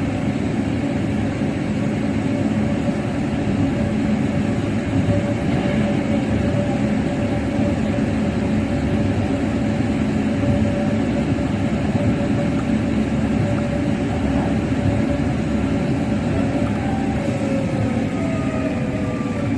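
Running noise inside a Hankyu 5100 series car, a resistance-controlled electric train: a steady rumble of wheels and running gear at speed. Near the end several tones in the noise begin to fall in pitch as the train slows.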